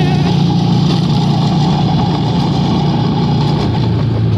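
Steady low drone of a vehicle's engine and running noise heard from inside the cabin while it moves.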